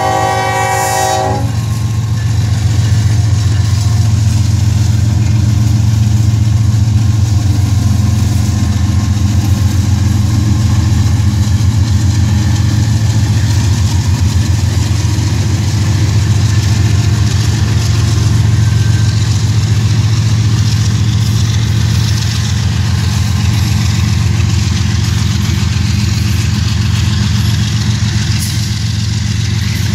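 Union Pacific diesel locomotives of a coal train passing close by: the horn's chord cuts off about a second in, then the engines' steady low drone and wheel noise on the rails as the lead units and the first coal cars go by.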